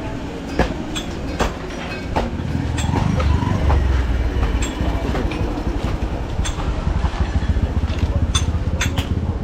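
Regular footsteps, about one step a second, then a low rumble from a heavy passing vehicle that builds up about two and a half seconds in and carries on, with scattered clicks and knocks over it.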